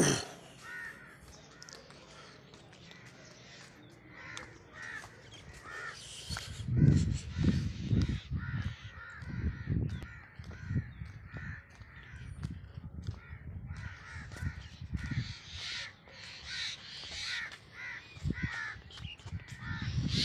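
Crows cawing over and over, many short harsh calls throughout. From about six seconds in, low thumps and rumbles are the loudest sound.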